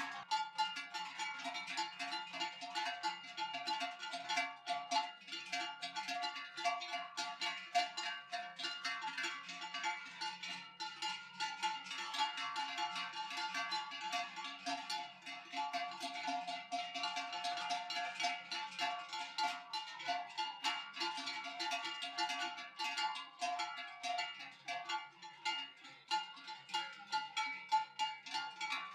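Many large cowbells clanging together as a herd of cows walks past. Their overlapping tones ring on without a break, with irregular strikes.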